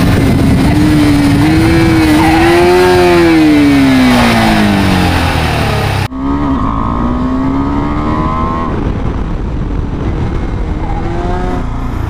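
KTM 390 Adventure's single-cylinder engine under way, its note climbing and then falling away as the bike accelerates and slows. About halfway through, the sound cuts abruptly to a quieter, duller version of the engine note, which dips and then climbs again.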